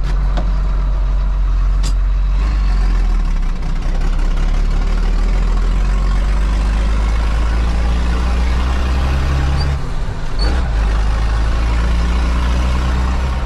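Tractor's diesel engine running steadily under load on the road, heard from inside the cab with the cab's rattle and road noise. The engine note dips and shifts briefly about ten seconds in.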